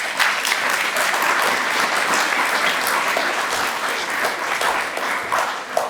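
Audience applauding, a dense sustained clapping that begins just as the speech ends and thins out near the end.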